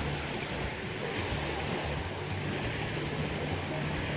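Wind buffeting the microphone: a steady rushing hiss over an uneven low rumble.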